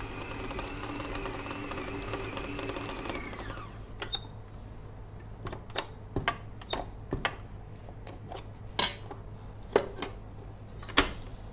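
Stand mixer motor running steadily, then winding down and stopping about three and a half seconds in, its dough-mixing done. It is followed by scattered sharp clicks and knocks of handling the bowl and utensils, the loudest near the end.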